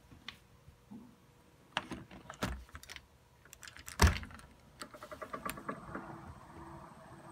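A door being opened: clicks and rattles of the handle and latch, with one loud knock about four seconds in, then a quick run of clicks. A low steady background hum sets in near the end.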